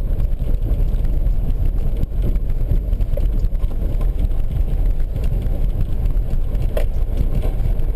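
Steady low rumble of a car driving on a snowy road, heard from inside the cabin.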